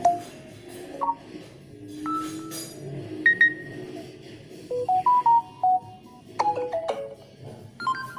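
Samsung Galaxy Note 10 Lite's loudspeaker playing a series of its stock alert tones one after another. Each is a short melodic chime of a few bright notes, lasting a second or less, with about half a dozen different tones in turn.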